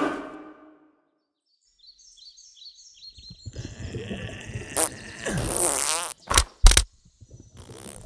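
A few high bird chirps, then a cow's dung dropping onto grass: a rush of noise and two loud, short splats about a third of a second apart.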